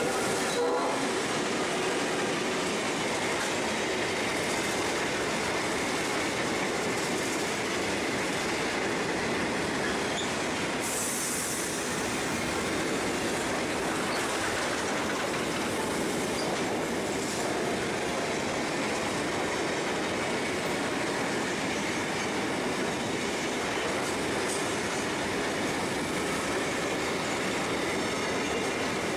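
Freight train of grain hopper wagons rolling past, with a steady noise of wheels on the rails.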